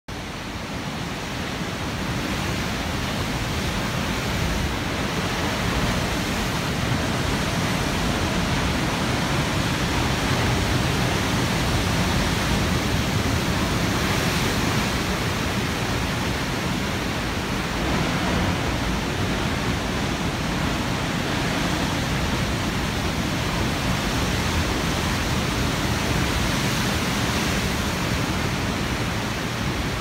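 Big ocean waves breaking over rocks, a steady rushing of surf and churning whitewater that swells up over the first two seconds.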